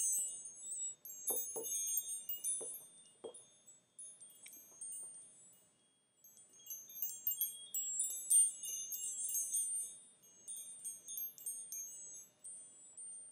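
Wind chimes tinkling in two flurries of high, ringing notes with a short pause between them. A few soft low knocks come in the first few seconds.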